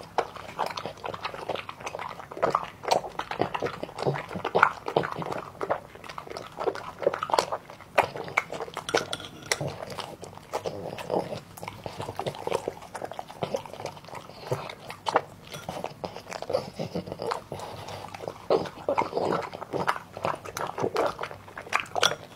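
French bulldog eating noodles and vegetables off chopsticks: close-up chewing, a dense run of quick, irregular mouth clicks.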